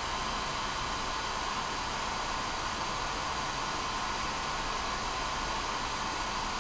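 Electric heat gun blowing steadily, a constant rush of air with a droning tone in it, heating a steel calculator shaft assembly to free a stuck taper pin.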